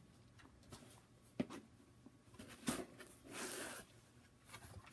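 A small cardboard box being opened by hand: two sharp taps, then a brief scratchy rustle as the flaps are folded back.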